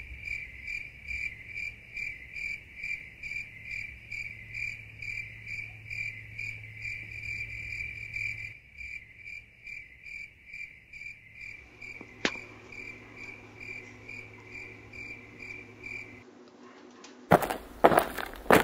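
Steady, high-pitched insect-like chirping, like a cricket, pulsing about three times a second, which cuts off shortly before the end. A run of loud, sharp knocks and handling thumps follows.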